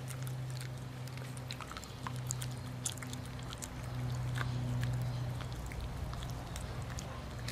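Stumpy Tail Cattle Dog growling low and steadily over a chew treat, in three long breaths with short breaks, loudest a little past the middle, with faint clicks of its teeth on the chew.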